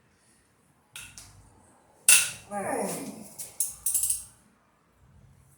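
Metal hand tools clinking and clanking against a cast iron engine during teardown, with one sharp metallic crack about two seconds in and a few more clanks after it.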